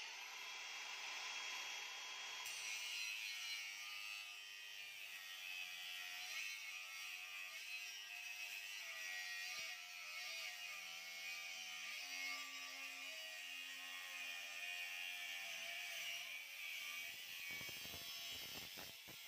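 Electric angle grinder with a thin cut-off disc cutting through a steel bar, a steady high grinding hiss of the disc in the metal.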